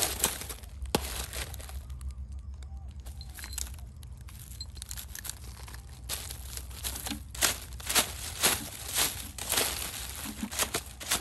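Plastic bags, paper and cardboard rustling and crinkling as a stick rakes through a pile of trash, in irregular crackles that grow busier and louder in the second half.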